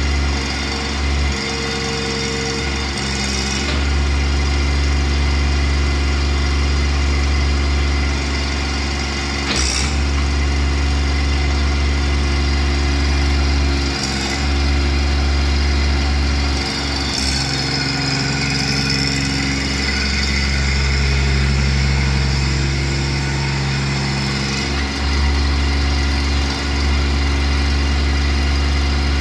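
AGT NT18K mini excavator's engine running steadily while the hydraulics work the boom, arm and bucket. The engine note shifts several times as the controls are worked, and a few sharp knocks come through along the way.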